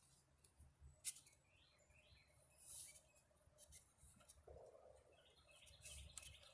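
Near silence, broken by a faint tick about a second in and a brief soft scrape of digging in soil near three seconds, with a few faint bird chirps.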